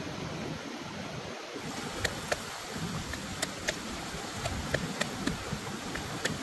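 Wooden pestle pounding red chillies and small green fruits in a wooden mortar: sharp knocks at irregular intervals, often in pairs, starting about two seconds in. Under it, a steady rush of running river water.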